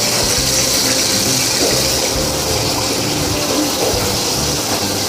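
Chicken pieces frying in hot oil in a commercial electric twin-basket deep fryer, a steady bright sizzling hiss.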